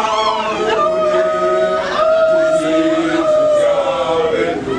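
Group of voices chanting and singing together, with one long held note that slides down in pitch near the end.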